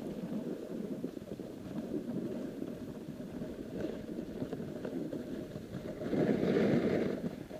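A snowboard sliding through snow, with wind rushing over an action camera's microphone. It swells louder about six seconds in, as the board carves a turn and throws up snow.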